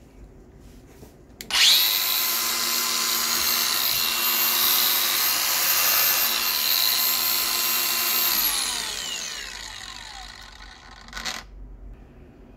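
Milwaukee M18 FUEL cordless 125 mm angle grinder with a cut-off disc fitted, switched on and running free with no load: it starts abruptly, holds a steady high whine for about six seconds, then winds down with falling pitch once the switch is released. A brief knock follows near the end.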